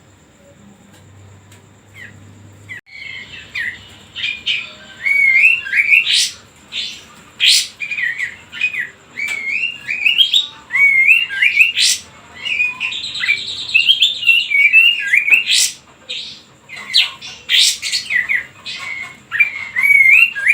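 A caged kapas tembak songbird singing hard in aggressive, high-spirited form: quick phrases of wavering high whistles broken by sharp chirps. The song starts about three seconds in and carries on without a break.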